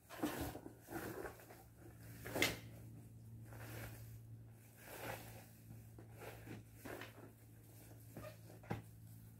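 Scattered light knocks and scuffs, the sharpest about two and a half seconds in, over a low steady hum.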